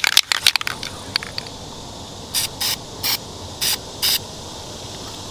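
Aerosol spray-paint can sprayed in five short hissing bursts, each about a quarter second, after a quick clatter of clicks at the start.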